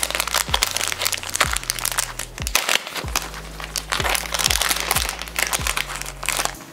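Crinkling and crackling of plastic and paper packaging as a packet of sticky-note flags is peeled open. Underneath runs background music with a deep bass line and a regular beat.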